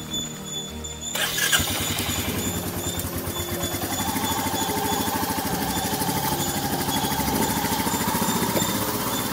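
Motorcycle engine running as the bike is ridden, its firing pulses rapid and even. It comes in suddenly about a second in, and its pitch rises a little around four seconds in, then holds steady.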